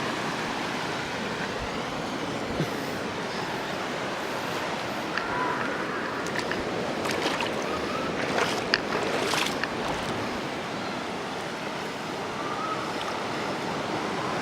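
Sea surf rushing and washing over a rocky shore in a steady wash, with a few brief knocks and splashes in the middle.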